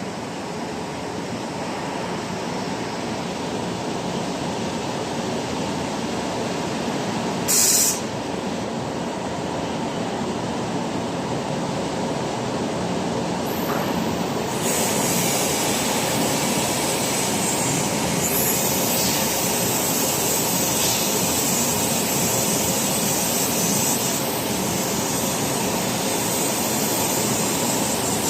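Whitney 4400 CNC turret punch and plasma machine running with a steady hissing roar. A short loud burst comes about a quarter of the way in, and a sharper hiss rises about halfway and holds.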